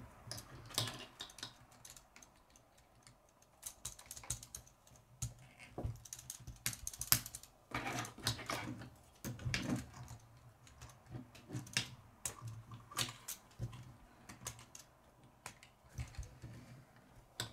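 K'nex plastic rods and connectors clicking and snapping together as the pieces are fitted, with irregular small clicks and taps of plastic parts handled on a wooden table.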